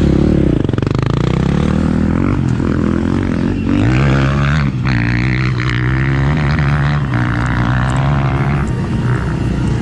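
Husqvarna FE501 dirt bike's single-cylinder four-stroke engine running loudly, its revs rising and falling in the first few seconds, then stepping up about four seconds in and holding steady.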